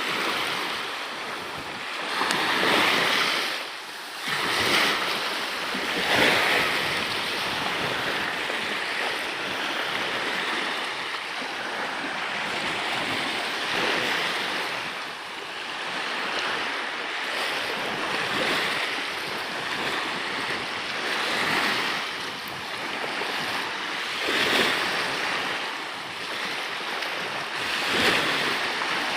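Water rushing and splashing past a sailing kayak, with wind; the rush swells and eases every few seconds.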